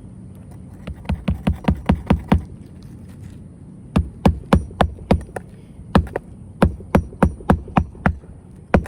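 Hammer driving roofing nails through asphalt shingles, three runs of quick strikes at about three to four blows a second, with short pauses between runs.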